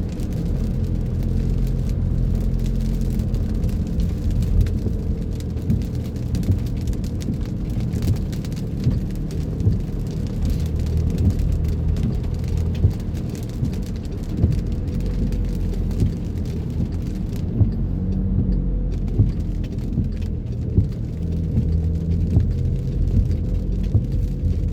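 Steady engine and road rumble of a car driving in the rain, heard inside the cabin, with many small ticks of raindrops striking the car throughout.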